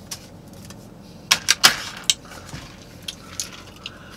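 Close-up eating and drinking sounds: a quick cluster of sharp clicks and crackles about a second and a half in, a few smaller clicks after it, then a soft sip of a sugary fountain drink through a straw near the end.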